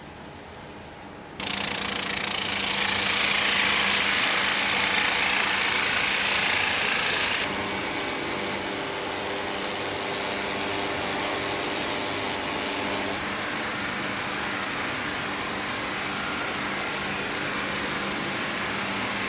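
Woodworking machinery running and cutting wood: a steady motor hum under loud, even cutting noise. The sound jumps abruptly a little over a second in and changes abruptly again about seven and thirteen seconds in.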